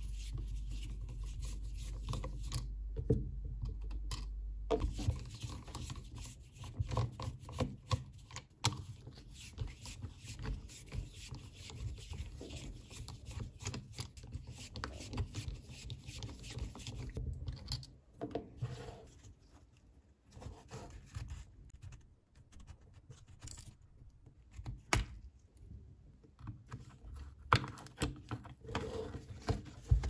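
Hand screwdriver turning out small screws from a cordless driver's metal gear housing: scraping, soft clicks and irregular knocks as the tool is handled on a workbench.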